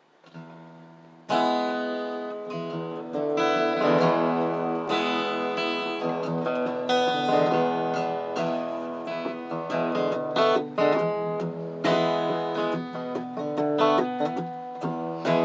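Acoustic guitar playing an instrumental intro: after a faint start, strummed and plucked chords come in sharply about a second in and ring on.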